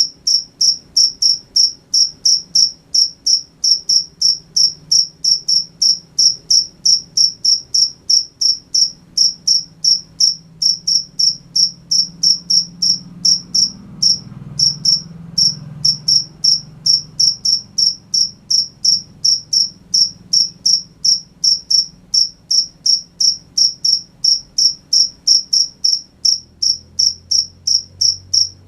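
A cricket chirping steadily, short high-pitched chirps at an even pace of about three a second, with a brief break about halfway through.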